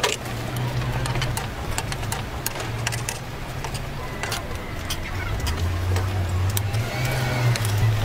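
Steady low mechanical hum of a running motor, shifting slightly in pitch, with scattered short clicks and clinks throughout.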